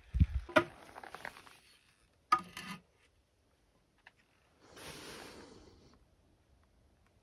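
Knocks and rattles of tools against a concrete block being bedded in mortar, with a spirit level set down on it, then a longer scraping rub about five seconds in.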